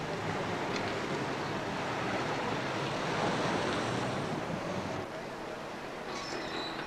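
Street traffic noise, a broad, even rushing that swells about three seconds in and drops off about five seconds in.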